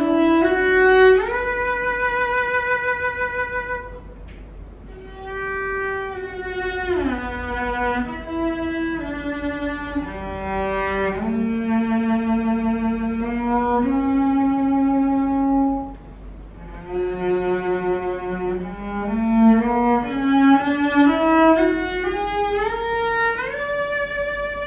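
Solo cello played with the bow: a slow melody of held notes with vibrato, broken by two short pauses, with a rising run of notes near the end.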